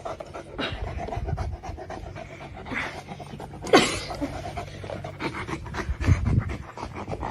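A dog panting in quick, even breaths, with one short sharp sound a little under four seconds in.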